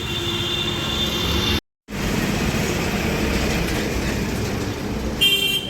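Steady street traffic noise, with a brief high-pitched tone near the end.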